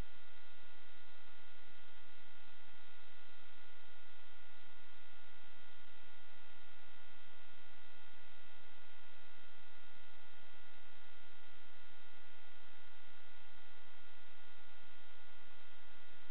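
Steady electronic hum and hiss with several fixed high whining tones, unchanging throughout: noise in the audio of an analog FPV video receiver's recording, not the drone's motors, which would rise and fall with the throttle.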